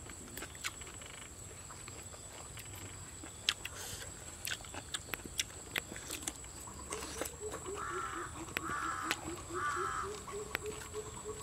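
Chewing and mouth clicks of two people eating raw vegetables and cooked offal by hand. From about seven seconds in, an animal calls a quick run of short low hoots, about four a second, with three harsh caws in the middle of them.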